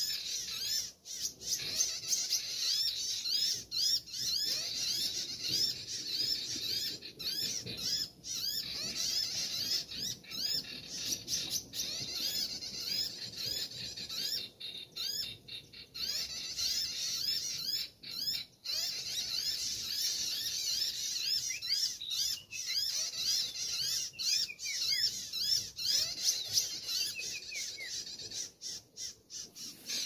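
Bird-call recording of noisy sogon calls played from an MP3 player as a trapping lure: a dense, rapid chatter of short high chirps that keeps on without a break.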